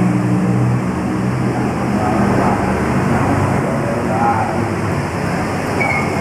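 A steady background din with a low hum that fades about a second in, and faint voices.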